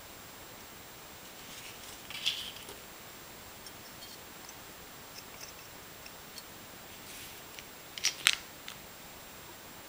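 Light handling of a clear plastic model-kit canopy sprue and a small polythene zip-lock bag: a brief crinkle about two seconds in, scattered faint ticks, and two sharp clicks near the end as the parts are put down on the cutting mat.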